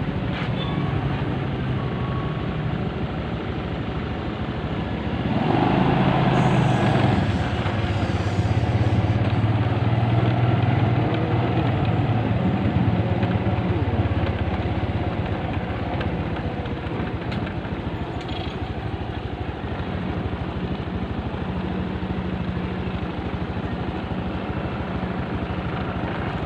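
A motor engine running steadily, growing louder about five seconds in and easing back after about fourteen seconds.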